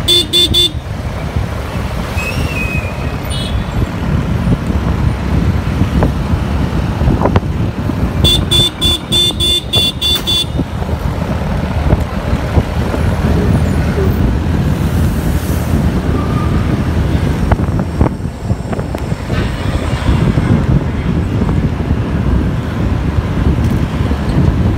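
Steady low rumble of riding on a motorbike or scooter through town traffic. A horn sounds as a fast run of short toots right at the start and again for about two seconds near the middle.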